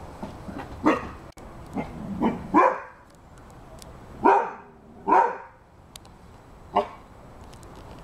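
Rhodesian Ridgeback barking: about seven single barks at uneven intervals, two of them softer, with gaps of a second or more between some.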